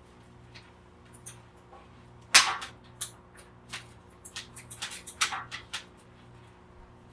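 A run of sharp clicks and snaps from a cord being worked at and cut. The loudest snap is about two and a half seconds in, and a quick cluster of clicks follows a couple of seconds later, over a faint steady hum.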